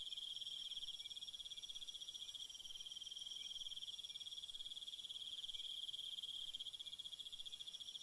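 Steady high-pitched insect chorus: a continuous fast trill, with a fainter, higher trill above it.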